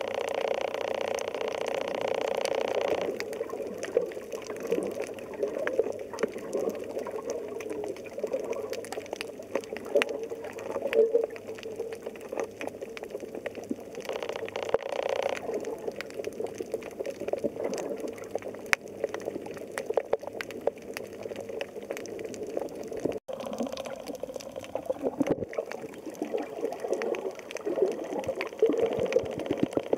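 Underwater sound over a coral reef: a steady wash of water noise, peppered with a dense crackle of short clicks. A steady droning hum sits over it for the first three seconds and again briefly about halfway.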